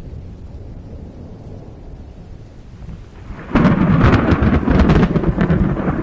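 Thunder in a heavy rainstorm: a low rumble dies away, then about three and a half seconds in a sudden loud, crackling thunderclap breaks and rolls on, with rain falling.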